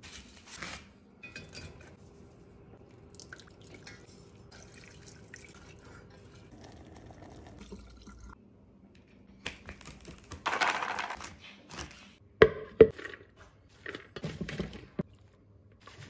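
Kitchen prep sounds: liquid dripping and pouring with faint clinks of cookware, and a rushing pour or hiss for over a second past the middle. Then two sharp knocks of cookware about half a second apart, the loudest sounds here, followed by softer clatter.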